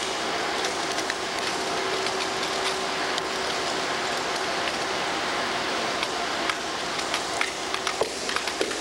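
Marine drill team's rifle drill: scattered sharp taps and clicks of hands striking rifles and heels and boots on the deck, coming more often near the end, over a steady hiss.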